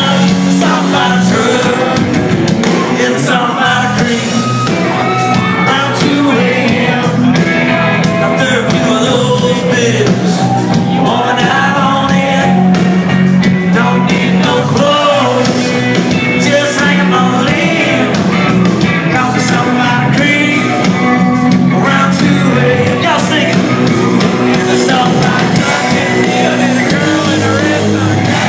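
Live country-rock band playing loud, with electric guitars, bass and drums under a male lead vocal, heard from within the crowd in a large hall.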